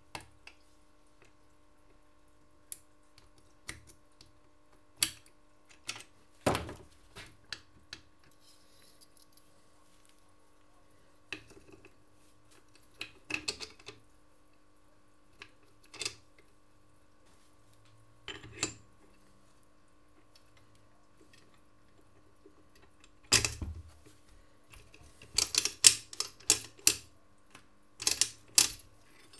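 Small metal parts clicking and clinking as a two-stroke moped engine is reassembled by hand: steel pieces knock against the aluminium crankcase half while a shaft and its coil spring are fitted. The clicks come singly and sparsely at first, then fall thick and fast near the end.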